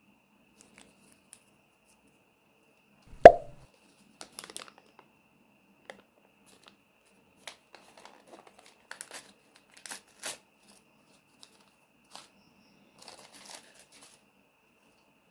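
Paper crinkling and tearing in short, scattered rustles as a folded paper surprise packet is opened by hand. One sharp knock a little over three seconds in is the loudest sound.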